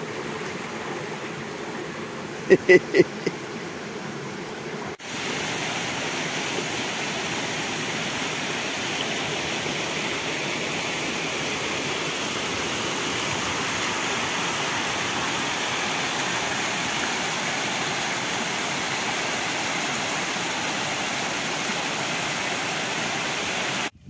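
Steady rushing of water from a small waterfall spilling over rock, getting somewhat louder about five seconds in. A short voice of about three quick syllables is heard about two and a half seconds in.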